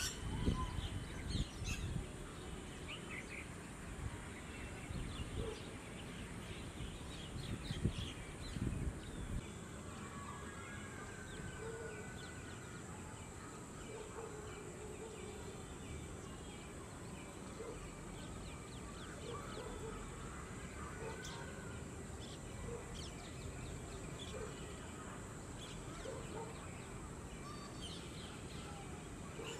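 Outdoor wetland ambience with birds calling on and off. In the first nine seconds, low thumps and rumble and many short high chirps come through. After that the sound settles to a steady background with a constant high-pitched hum and scattered faint calls.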